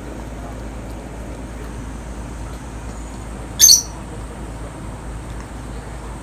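A single short, high-pitched squeal from a pet, about three and a half seconds in, over a steady background hiss.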